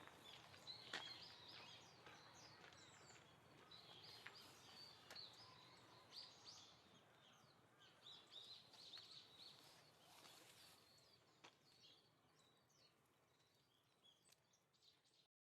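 Faint, frequent short high chirps and calls of small songbirds, over quiet outdoor background noise; the sound stops abruptly near the end.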